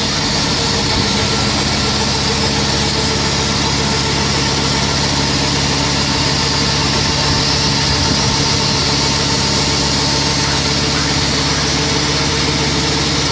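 Mobile milking parlor's vacuum pump running steadily during the washing cycle: an even, unchanging hum with hiss over it.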